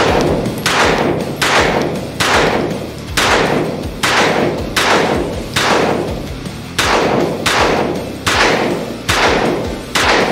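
Glock G17L 9 mm pistol firing a steady string of about a dozen shots, roughly one every 0.8 s, with a slightly longer pause after the seventh; each shot leaves a short ringing tail.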